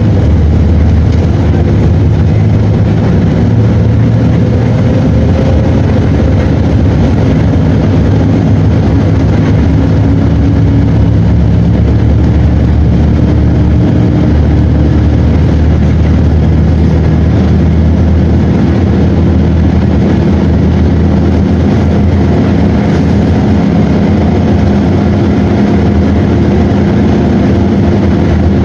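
Mercedes-Benz OM 457 LA inline six-cylinder turbodiesel of an O-500 bus running steadily, its pitch drifting slowly up and down.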